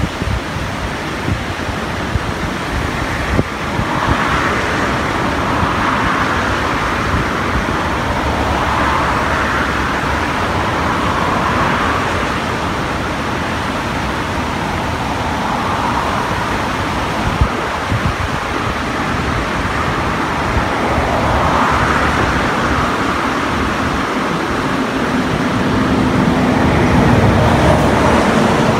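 Steady rushing noise of a rain-swollen river, swelling and easing every few seconds, with wind buffeting the microphone.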